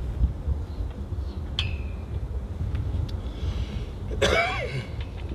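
Wind rumbling on the microphone, with one short cough from someone in the crowd about four seconds in.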